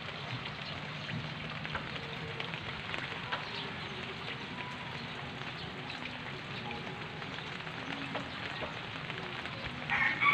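Steady heavy rain falling on leaves and garden surfaces, with many single drops ticking close by. A rooster starts crowing at the very end, the loudest sound.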